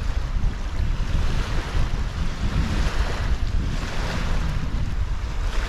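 Wind buffeting the microphone with a heavy rumble, over the rushing wash of lake waves against the bank, swelling about three seconds in and again near the end.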